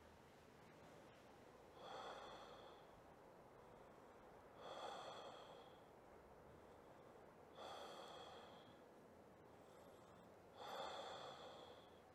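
Faint breathing, four breaths about three seconds apart, each a soft hiss with a thin high whistle on top.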